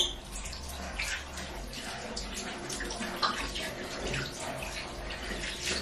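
Tap water running into a bathroom sink, with irregular splashing as a face is rinsed during cleansing.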